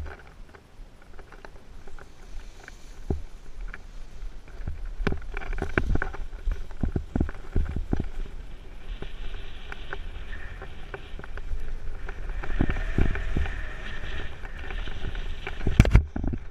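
Wind rumbling on a paraglider pilot's body-worn camera microphone, with irregular knocks and footfalls from the takeoff run. A hiss of rushing air builds in the second half, and a loud thump comes near the end.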